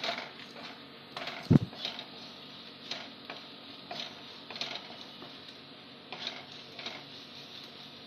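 Wooden spatula scraping and stirring onions and ground spices in a kadhai, a stroke every half second to a second as the masala is roasted, with one dull knock about a second and a half in.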